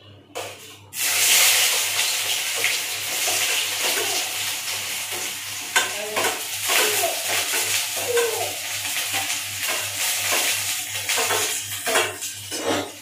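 Chopped onion scraped from a plate into hot oil in a kadhai, catching with a loud sizzle about a second in and frying steadily as it is sautéed for poha. A metal spatula scrapes and clinks against the pan and plate.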